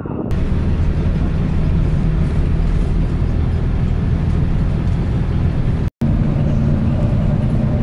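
Steady engine and road noise heard from inside a moving bus: a low rumble with a hiss of tyres and wind over it. The sound drops out for an instant about six seconds in.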